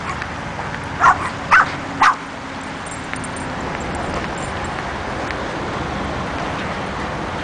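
A small dog barking three times in quick succession, about half a second apart.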